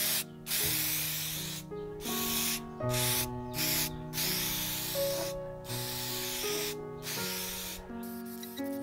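Aerosol spray paint can hissing in a series of short bursts, about eight, with brief pauses between them, over background music.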